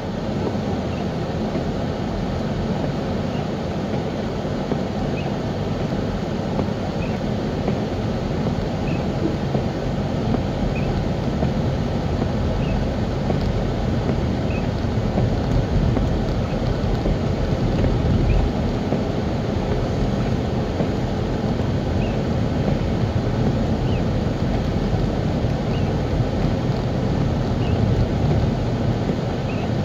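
Car driving on a snowy road: a steady low rumble of road and engine noise. A faint tick repeats about every two seconds.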